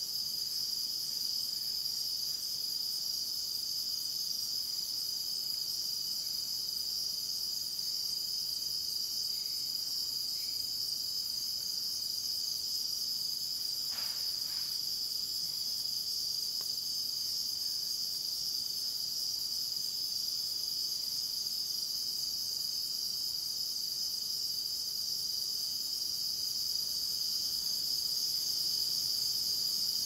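Night rainforest insect chorus: crickets and other insects trilling in a continuous, steady high-pitched din.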